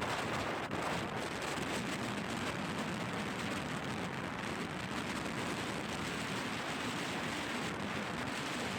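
Strong sea wind blowing across the microphone: a steady, rushing noise.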